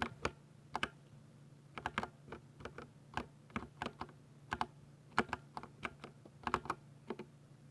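Typing on a 60% RGB keyboard: irregular keystrokes, singly and in quick runs of two or three, that stop shortly before the end, over a faint steady hum.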